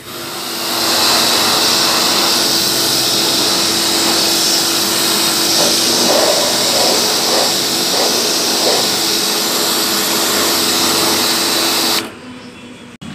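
Pressure washer spraying a high-pressure water jet onto the removed EGR pipe and exhaust manifold to wash off carbon: a loud, steady hiss with a steady hum underneath. The spray stops abruptly about twelve seconds in.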